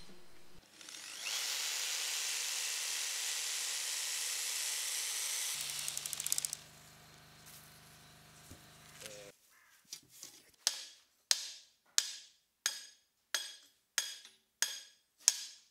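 A steady hiss for about four seconds, then from about ten seconds in a hammer striking in a regular rhythm, about one and a half blows a second, each blow with a short ring.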